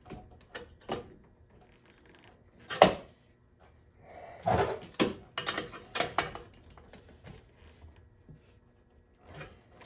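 Scattered handling knocks and clicks of parts and tools during hands-on work fitting an oil cooler. There is one loud sharp knock about three seconds in, then a cluster of heavier knocks around the middle.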